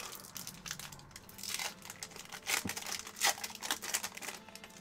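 Foil wrapper of a Pokémon Sun & Moon booster pack being torn open across its top and crinkling in the fingers, in a series of short rips and crackles.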